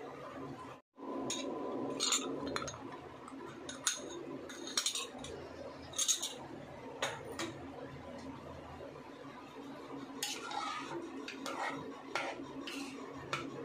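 Metal spoon stirring in an aluminium pressure cooker, with scattered irregular clinks and scrapes against the pot's side over a steady background. The sound drops out completely for a moment about a second in.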